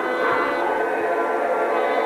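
Music of slow, sustained chords: many long held tones sounding together.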